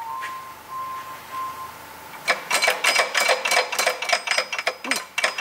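Stanko 1M63 lathe headstock gear train and shift mechanism clicking and clattering as the gear-shift lever is worked by hand: a fast run of sharp metallic clicks with ringing that starts about two seconds in. The shift is sticking, which is traced to a worn disc inside the headstock.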